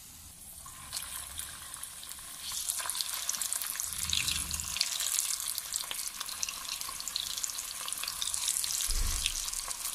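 Moong dal nuggets sizzling and crackling in hot oil as raw ones are dropped in by hand for the next batch of deep-frying. The sizzle picks up about a second in and grows louder a couple of seconds later.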